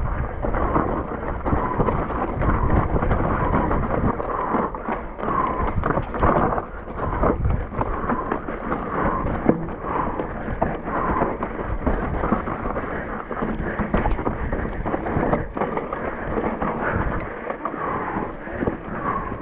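Electric mountain bike ridden over rough trail: wind buffeting the camera microphone, with frequent knocks and rattles from the tyres and frame hitting the ground.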